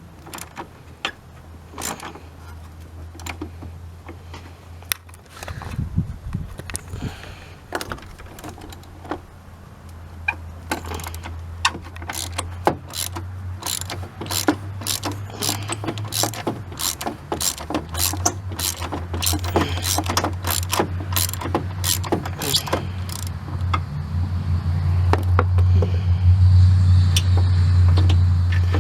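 Ratchet wrench clicking as it works a 12 mm battery hold-down bolt loose. The clicks come sparsely at first, then in quick runs from about ten seconds in, over a steady low hum.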